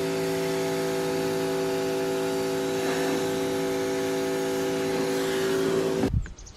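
A motor-driven machine running at one steady pitch with a loud rushing hiss, then switched off and cutting out suddenly about six seconds in.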